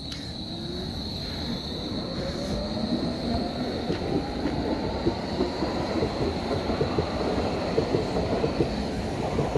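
Hamburg U-Bahn DT5 train pulling away and speeding up: its traction motors whine, rising steadily in pitch, while the wheels clatter on the rails, growing louder.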